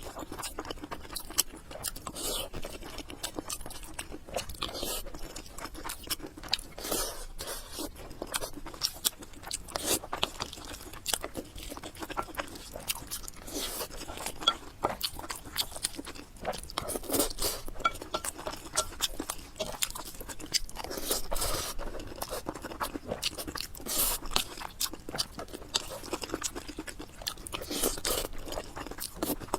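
A person chewing and biting food close to the microphone, with crunchy bites: a dense, uneven run of short crackles and smacks.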